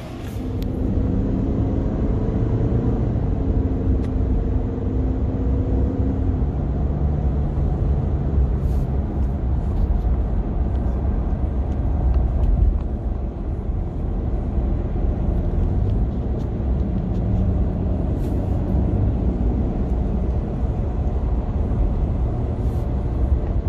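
Road noise inside a moving car: a steady low rumble of engine and tyres, with a faint steady hum over it for the first several seconds.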